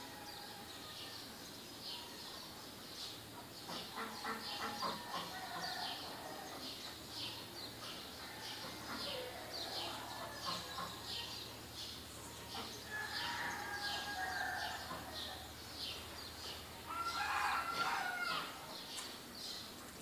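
A rooster crowing a few times, loudest near the end, over small birds chirping rapidly and steadily in a dawn chorus.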